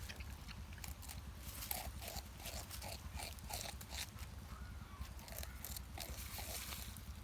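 Porcupine gnawing and chewing bamboo: a steady run of short crunching and crackling bites, quickest and densest a couple of seconds in.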